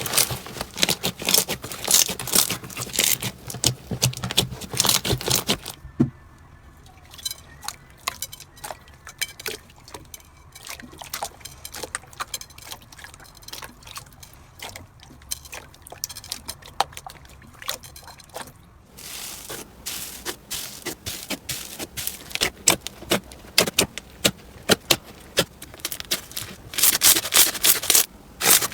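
Slime being squeezed and worked by hand, giving off dense crackling and popping clicks. The clicks thin out and go softer for a long stretch in the middle, then come back thick and loud.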